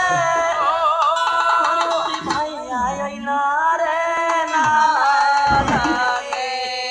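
Indian folk song playing for dancing: a melody line with wavering, ornamented pitch over hand-drum percussion.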